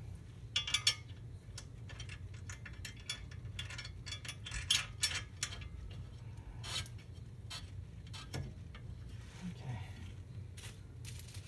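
Irregular metal clicks, clinks and scraping of sway-bar hardware and hand tools being handled and fitted, louder about a second in and around five seconds in, over a steady low hum.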